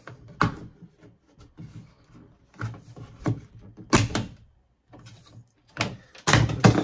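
Plastic clicks and knocks from an old wall thermostat's housing being pried open and worked off its wall base plate, a handful of separate snaps with the loudest cluster near the end.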